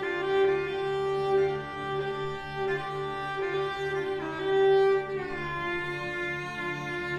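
String orchestra playing a slow piece: a violin melody in long held notes that steps downward near the end, over low strings pulsing on a repeated note.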